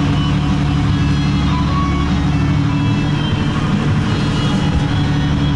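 A boat's engine running at a steady speed: a constant low hum that does not change.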